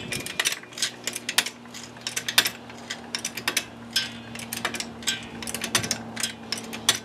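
Small jack being pumped to raise a rear axle: an irregular run of metallic clicks and clanks, several a second.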